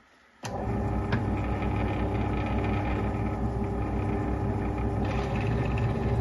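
Small bench drill press switched on with a click about half a second in, its motor and chuck then running at a steady hum. From about five seconds in a higher rasping sound joins, as the bit starts cutting an oil hole into the lathe's slide.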